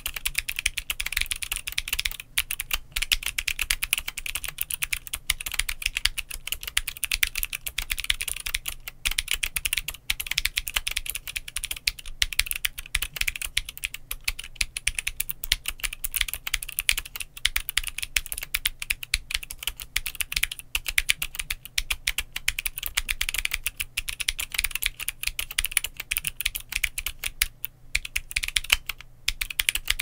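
Continuous fast typing on a GMMK Pro mechanical keyboard with the FlexKit mod, Glorious Raptor switches and Glorious Polychroma polycarbonate keycaps: a dense, unbroken stream of key clacks.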